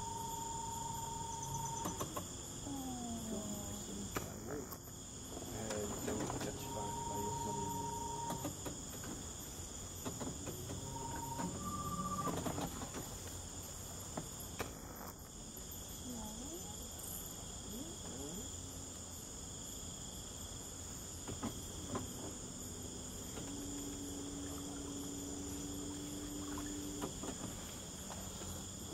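Night insect chorus: a steady, high-pitched trilling that keeps up without a break. Fainter, shorter tones and calls come and go underneath it.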